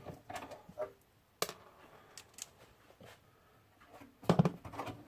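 Scattered light clicks and taps, with a sharp knock about a second and a half in and a louder clatter of knocks near the end, from hands working the screws and panels of an Acer Aspire desktop computer's case as it is taken apart.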